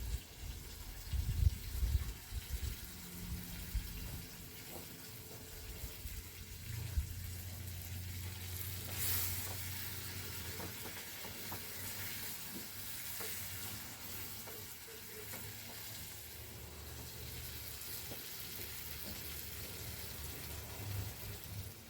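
Food sizzling in a pan, an even frying hiss, with a few low knocks in the first couple of seconds and a steady low hum underneath from about a quarter of the way in.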